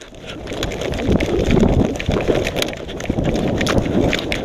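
Hurried footsteps running through snow, a quick uneven crunching, with wind rumbling on the microphone. It grows louder over the first second as the run gets going.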